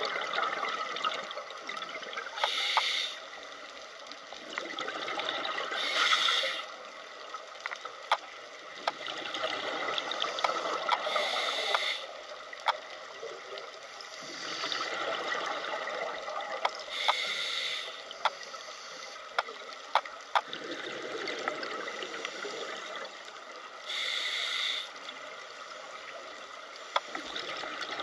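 Scuba regulator breathing heard underwater. Five loud bubbling exhalation bursts come every few seconds, with a softer hiss of inhalation between them and scattered sharp clicks.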